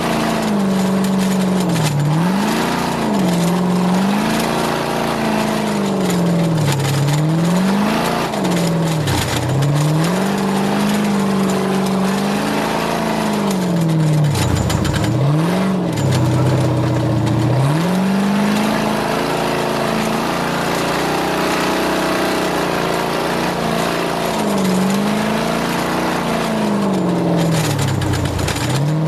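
Onboard sound of an off-road desert race vehicle at speed: its engine revs up and down without a break, the pitch climbing and falling every few seconds with sudden sharp drops as the throttle is lifted, over a steady rushing noise.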